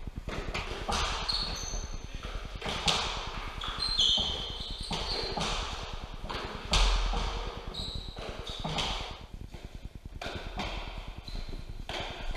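Fives rally: the hard ball struck by gloved hands and hitting the court walls in sharp cracks at irregular intervals, the loudest about three, four and seven seconds in, with short high squeaks of shoes on the court floor.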